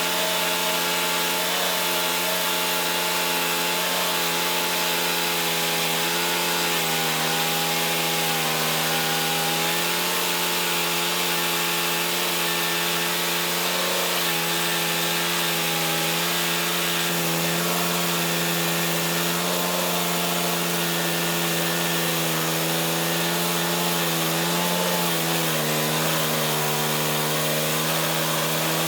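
Petrol-engined band sawmill running steadily while cutting through a log. The engine's note wavers slightly at times under load.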